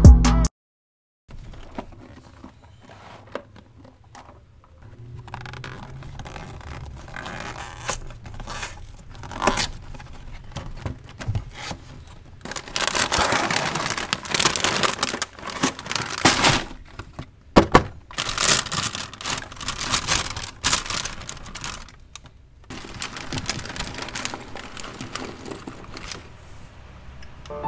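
Hands opening a cardboard box and handling the clear plastic wrapper inside: irregular tearing, scraping and crinkling, loudest in bursts around the middle.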